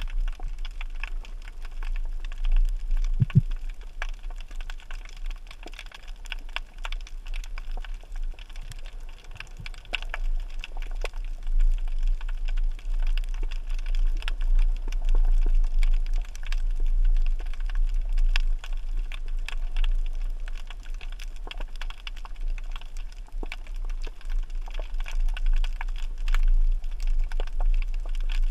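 Underwater reef ambience: a dense, irregular crackle of tiny clicks over a steady low rumble of water movement, with one brief low knock about three seconds in.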